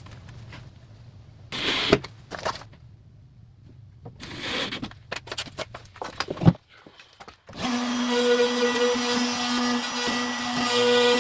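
A few scattered knocks and clatters, then about three quarters of the way in an electric router switches on and runs at a steady pitch, ready to cut a door hinge mortise.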